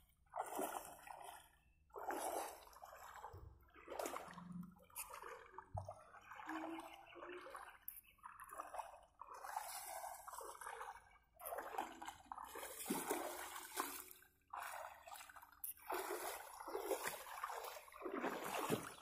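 Footsteps wading through shallow river water, splashing and sloshing in uneven bursts about once a second.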